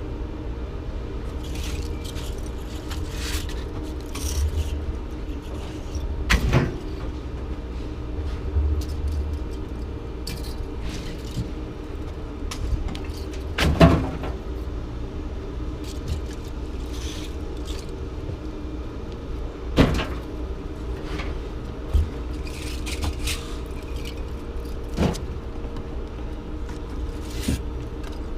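A steady engine-like rumble and hum runs throughout. Over it come a handful of sharp knocks and clunks several seconds apart, from scrap ACR radiators being handled and set down during unloading; the loudest comes about halfway through.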